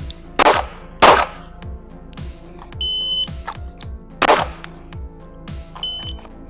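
Glock 43X 9mm pistol fired against an electronic shot timer: two shots about half a second apart near the start, then a short high timer beep, a single shot about a second and a half later, and another beep near the end marking the 3-second par. Background music with a steady beat runs underneath.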